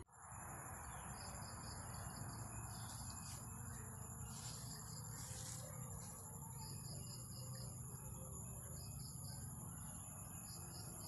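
Insects trilling outdoors: a continuous high-pitched drone, with groups of four or five quick chirps every few seconds.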